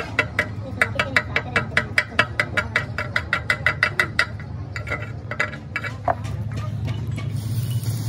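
Rapid light metallic tapping, about five strikes a second, as a hand tool hits the welded end of a steel hydraulic cylinder barrel, thinning to a few scattered strikes and stopping about six seconds in. A steady low hum runs underneath.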